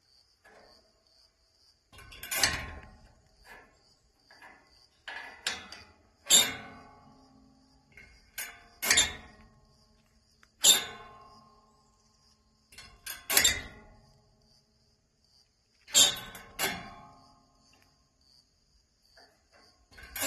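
Old metal gate latch being worked over and over: sharp metallic clacks and rattles, each with a short ring, coming every one to three seconds and sometimes in quick pairs, with lighter clicks between them.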